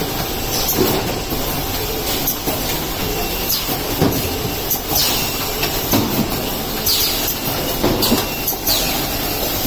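Automated case-packing line with a delta robot running: steady machine clatter, with short air hisses every second or two and a few knocks.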